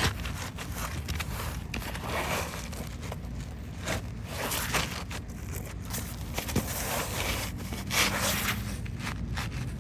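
Irregular scraping, rustling and knocking of hands and tools working on an asphalt shingle roof, with one louder stroke near the end.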